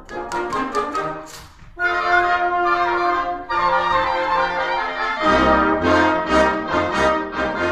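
Orchestral music with brass: sharp typewriter-like clicks over the tune for the first second and a half, then full sustained chords, with bass notes pulsing in time during the second half.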